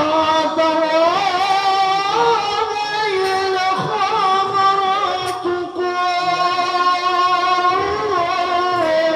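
Music: a continuous, ornamented melody whose pitch bends and wavers, with a dip in loudness near the middle.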